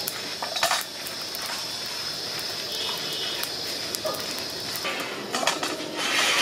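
A wooden spatula stirring and scraping coriander seeds and dried red chillies in a nonstick pan as they dry-roast, with the seeds rattling in light scattered clicks over a steady high hiss. A louder rush of rustling comes near the end.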